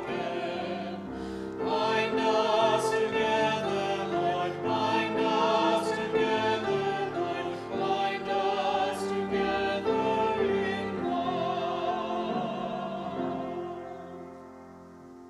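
Music: singing with a wide vibrato over instrumental accompaniment, fading out over the last couple of seconds.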